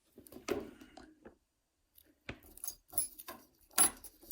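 Small metal parts of a Euro cylinder lock clicking and rattling as it is taken apart by hand. There are a short rattle about half a second in, a string of light clicks, and a sharper click near the end.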